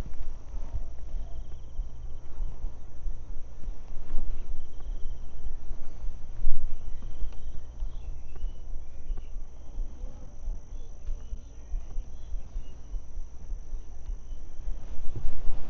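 Insects chirping in a steady, even high drone over a low rumble, with a brief bump a little before halfway.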